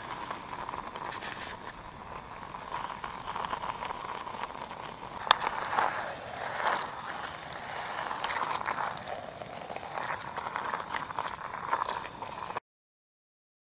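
Whale meat sizzling and crackling as it fries in olive oil in a small metal camping mug on a gas canister stove, with a spoon clicking and scraping against the mug as the meat is stirred. The sound cuts off abruptly near the end.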